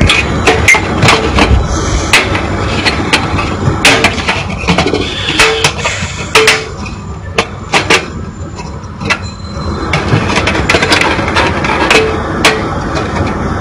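Metal motherboard I/O back plate being pressed and snapped into a PC case's rear opening: a run of sharp, irregular metallic clicks and knocks over a steady background noise.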